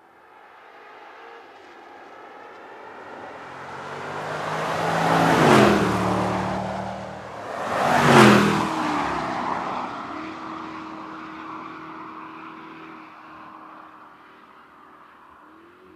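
Land Rover Defender's supercharged 5.0-litre V8 driving past twice in quick succession. Each pass builds to a peak about five and eight seconds in, and the engine note drops in pitch as it goes by. The engine note then fades as the vehicle drives away.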